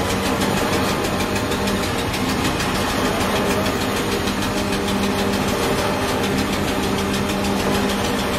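A truck engine idling steadily, with an even running rhythm and no change in speed.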